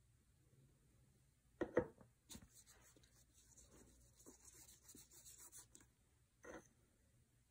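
Quiet, soft scratchy rubbing of a fingertip smearing finger paint across paper for a few seconds. Two light knocks come just before it, and another brief knock comes near the end.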